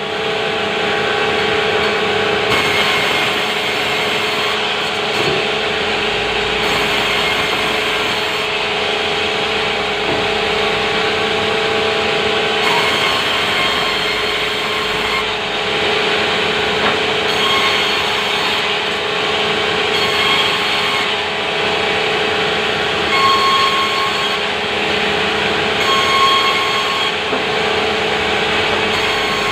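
Sawmill saw running and cutting through timber: a steady, loud machine sound with a held tone and the rasp of the blade in the wood.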